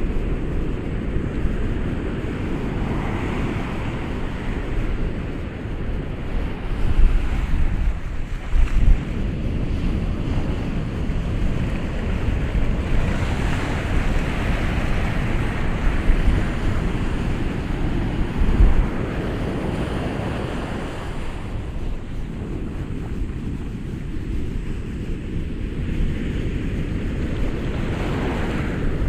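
Ocean waves breaking and washing up in slow surges, with wind buffeting the microphone in a low rumble and a few gusty thumps.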